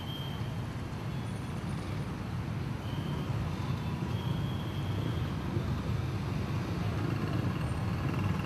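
Steady low rumble of city street traffic, with a few faint, brief high tones over it.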